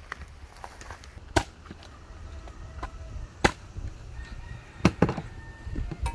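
Chicken being chopped up with a blade: four sharp chops at uneven intervals, the last two close together near the end, with lighter knocks in between.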